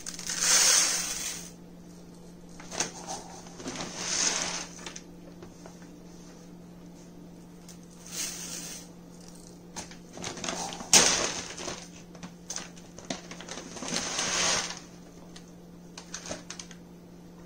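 Dry basmati rice grains pouring from a plastic measuring cup into a large plastic bowl, a rattling hiss repeated in several separate pours, with a sharp knock of the cup against the bowl about eleven seconds in.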